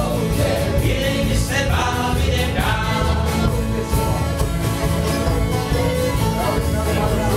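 Live band playing: a man singing over strummed acoustic guitars, a bowed fiddle and a drum kit, with a steady bass beat.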